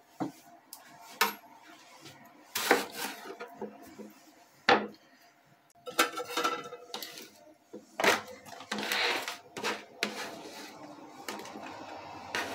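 Kitchen knife knocking and scraping on a plastic cutting board while a tomato is diced and the pieces are moved into a plastic tub. Separate sharp knocks a second or two apart, with a brief silent gap near the middle.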